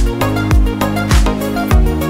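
Background music with a steady beat: a kick drum about every 0.6 seconds over sustained chords.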